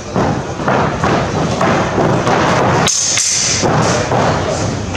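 Steel fencing sabres and footwork in a fast bout: repeated thuds of feet stamping and lunging on a wooden floor, with a brief high metallic clash and scrape of the blades about three seconds in.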